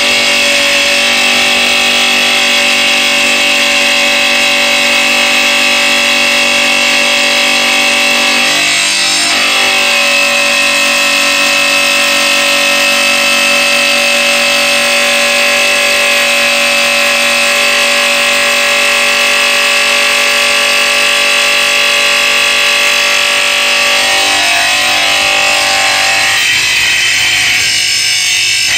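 Raimondi Jollyna tile saw running, its blade grinding along a strip of ceramic tile fed through for a 46° bevel cut: a steady high whine that dips briefly about nine seconds in.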